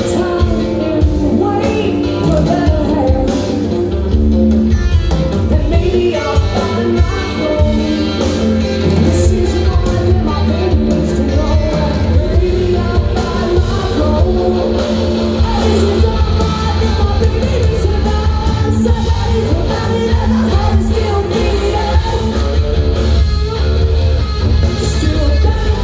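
Live rock band playing loud through the house sound system: electric guitars and drums, with the lead singer's vocals over them.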